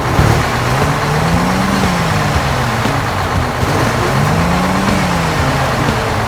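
Truck engine running steadily, its pitch rising and falling back twice as it revs.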